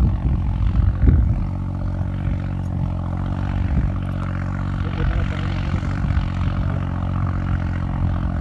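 A tractor's diesel engine working hard and steadily under load as it pulls a harrow through dry soil. Its drone holds an even pitch.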